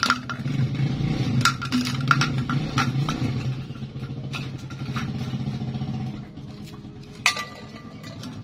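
An empty plastic bottle clattering on concrete as a dog plays with it, with several sharp knocks. Underneath is a steady engine hum that drops away about six seconds in.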